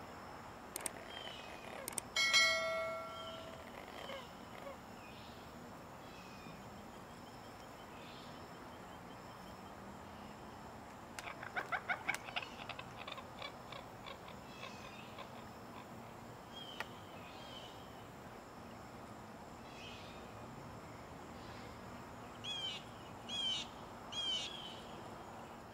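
Faint outdoor ambience with birds calling over a steady background hiss. There are scattered short calls, a quick rattling series of notes about eleven seconds in, and three repeated chirps near the end. A brief pitched tone about two seconds in is the loudest sound.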